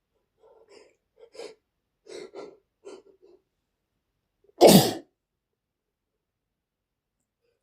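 A man sneezing: a run of short, quieter breathy catches leading up to one loud sneeze about five seconds in.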